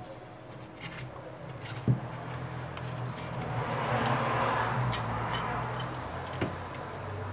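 Crinkling and rustling of a thin plastic sheet being pressed and rubbed against a phone's back cover, with scattered small clicks, loudest about four to five seconds in. A steady low hum runs underneath.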